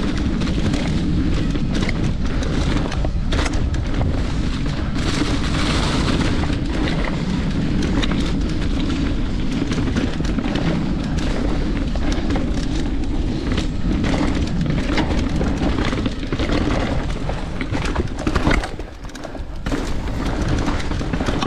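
Wind buffeting a GoPro microphone on a fast mountain-bike descent, over the tyres rolling on dirt and rock. The Santa Cruz Nomad's frame and chain rattle in frequent clicks and knocks. The rumble eases briefly near the end.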